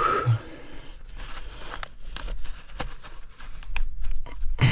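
Crinkling and scattered sharp clicks of things being handled, with a brief voice at the start and again near the end.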